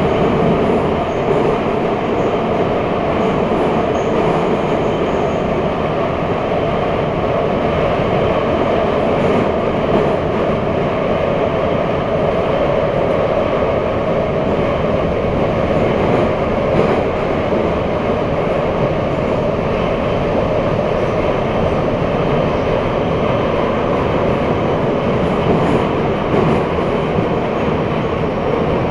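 Kharkiv metro train running between stations, heard from inside the carriage: a loud, steady rumble of wheels on rail.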